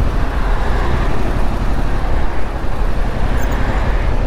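Yamaha MT-07 motorcycle engine running steadily as the bike moves at low speed through traffic, over a general haze of road and traffic noise.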